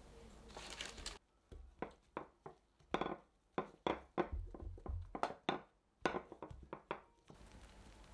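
Knife chopping on a wooden cutting board: a run of about fifteen sharp knocks, irregular, two or three a second.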